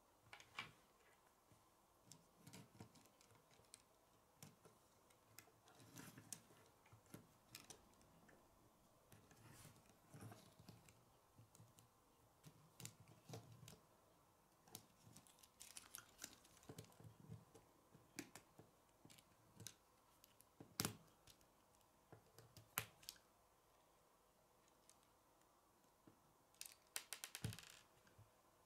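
Faint, irregular clicks and snaps of plastic K'nex pieces being handled and pressed together, with a quick rattle of clicks near the end.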